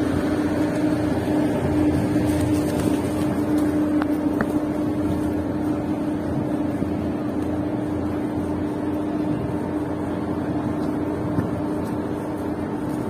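Steady engine drone: a constant low hum with a low rumble underneath, the hum fading out about three-quarters of the way through.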